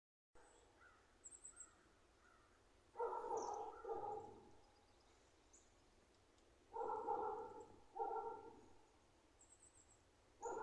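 A dog barking a few times, each call about half a second to a second long, with faint high bird chirps between the barks.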